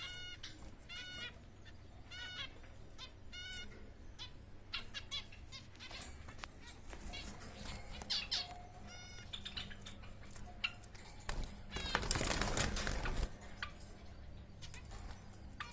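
Pet birds calling in short, repeated squawking chirps, with a louder noisy flurry lasting under two seconds near the end.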